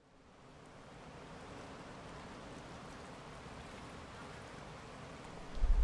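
Steady rushing noise, fading in over the first second, then a loud low rumble of wind on the microphone starting near the end.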